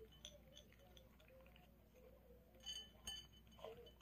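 Small dog eating dry kibble from a ceramic bowl: faint, scattered clinks of kibble and muzzle against the bowl, with a couple of louder clinks about three seconds in.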